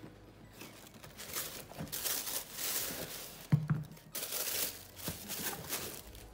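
Tissue paper rustling and crinkling as a cardboard shoebox is opened and running shoes are lifted out, with a single thump about three and a half seconds in.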